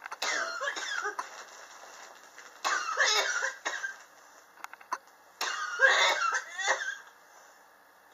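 A person coughing in three bouts about two and a half seconds apart, each bout a few rapid coughs. It is a chronic cough that has gone on for years, which the person blames on sharp temperature changes in their apartment.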